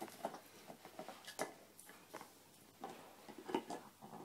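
A Labrador gnawing an antler chew: irregular faint clicks and scrapes of teeth on hard antler.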